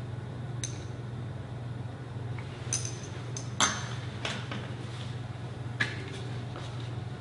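A few scattered light clinks and taps of a metal spoon and kitchenware over a steady low hum.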